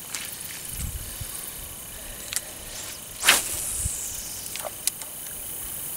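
A spinning rod swished through a cast a little past halfway, followed by about a second of line hissing off the open-face reel's spool. A few small clicks come before and after.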